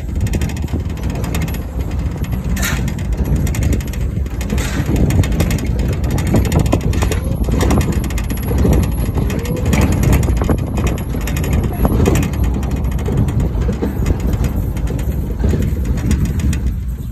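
Car driving slowly along a street, engine and tyre noise heard from inside the cabin, loud and unsteady.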